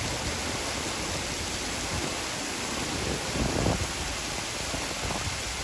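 Heavy rain falling in a steady downpour, a constant hiss of big raindrops on gravel and grass, with gusts of wind buffeting the microphone as an uneven low rumble.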